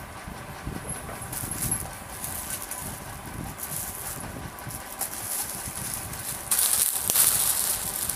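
Rustling and handling noise from garments being moved about, with scattered crackles, much louder from about six and a half seconds in.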